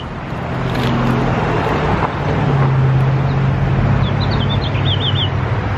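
Street traffic: a motor vehicle's engine grows louder as it passes, peaking in the middle, over a steady road-noise haze. A bird chirps a few times near the end.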